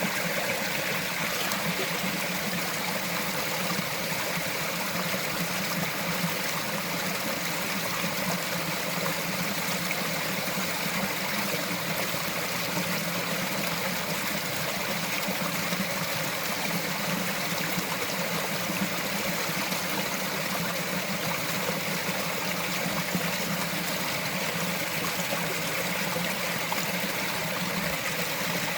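Small mountain forest stream running over rocks, a steady trickling and babbling rush of water.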